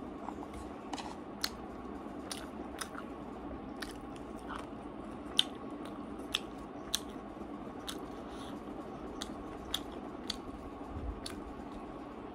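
A person eating by hand and chewing: short wet mouth clicks and smacks scattered irregularly, over a faint steady background hum.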